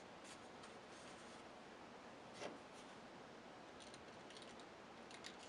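Near silence with faint room hiss and a single light tap about halfway through, from handling the rocket fin and super-glue bottle on a cutting mat.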